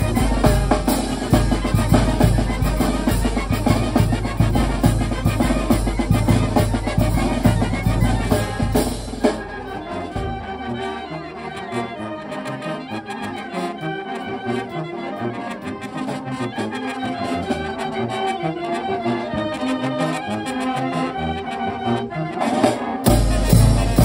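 Oaxacan village brass band playing, with trumpets, trombones and clarinets over bass drum and cymbals. It starts loud and full with heavy bass. About nine seconds in, the deep bass and drum drop away, leaving the horn and clarinet melody lines. The full band comes back in near the end.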